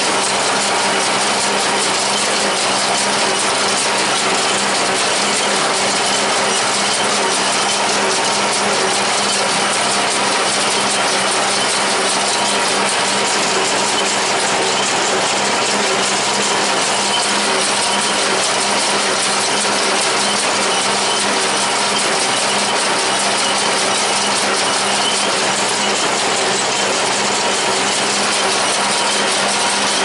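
John Deere 336 small square baler running steadily as it picks up and bales hay, a loud continuous mechanical noise, with the John Deere 3020 tractor's engine running under it.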